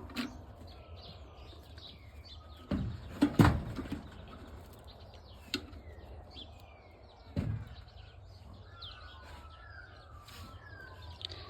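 Small birds chirping in short falling notes, busiest near the end, with a few sudden thuds and rustles close by, the loudest about three seconds in.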